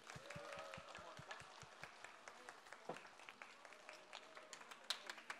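Faint, scattered applause from an audience, individual hand claps coming as separate sharp hits.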